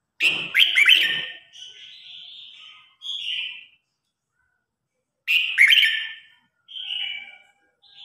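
Red-whiskered bulbul singing two short phrases of loud, sharp whistled notes, with a pause of about a second and a half between them.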